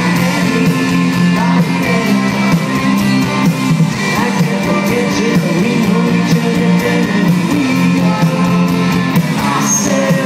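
Live rock band playing through a festival PA: electric guitars and drums with a sung vocal line.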